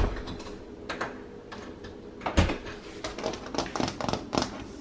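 Fingers and nails tapping and clicking on a faux-brick backsplash panel, testing it; the panel is not real brick. The taps come thicker in the last second and a half, and a single louder thump comes a little over two seconds in.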